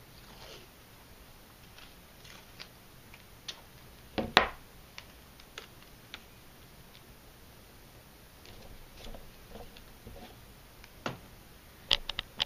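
Masking tape being handled: pulled, torn and pressed down onto paper, giving scattered short crackles and taps. The loudest comes about four seconds in, with a cluster of sharper clicks near the end.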